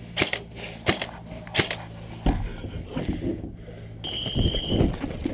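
Airsoft gun firing single shots: three sharp cracks about two-thirds of a second apart, then a low thump. Around four seconds in a brief high steady beep sounds, followed by rustling and knocking of movement.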